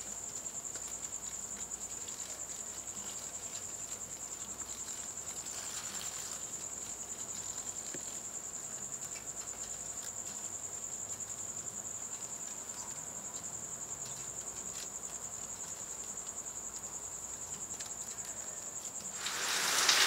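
Night insects, cricket-like, trilling steadily on one high, unbroken note. Heavy rain fades in near the end.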